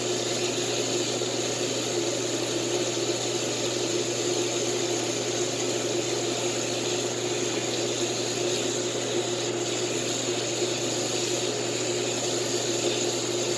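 Water running steadily from a tap, with no change and no break.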